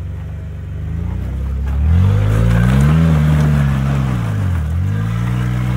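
Jeep Wrangler Unlimited's engine revving under load as it crawls over rocks. The revs climb about a second and a half in, ease off briefly past the middle, then rise again and hold.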